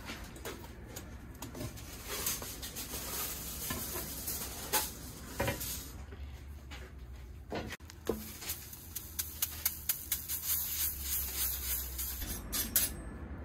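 Thick batter stirred and scraped in a large metal bowl with a wooden paddle, knocking against the bowl. In the last few seconds the batter is spooned onto a hot iron griddle, with quick clicks of the spoon and a light sizzle.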